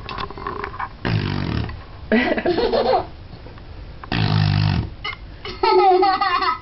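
Two low fart noises made with a plastic cup in a bathtub, each under a second long, about a second and four seconds in. Each is followed by a child laughing.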